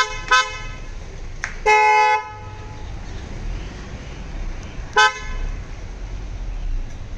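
Car horn honking: two quick toots at the start, a longer blast about two seconds in and another short toot about five seconds in, over a steady low rumble.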